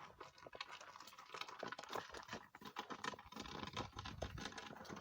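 Faint, irregular light clicking and crackling, many small ticks close together.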